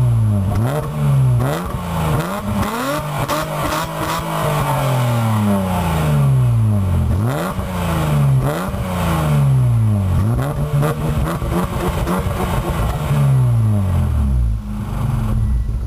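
Mazda MX-3 exhaust through its old twin-tip muffler, the engine revved again and again. Each blip rises quickly and falls back slowly to idle, about seven times, and it settles to a steady idle near the end.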